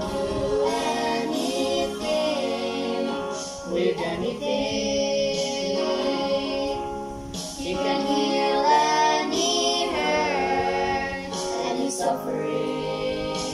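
A small group of young voices singing a Christian worship song together, with long held notes.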